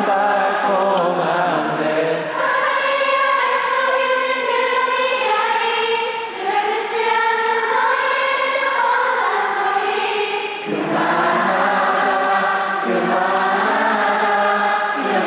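A large arena crowd of fans singing a Korean pop duet together in unison over the song's backing track.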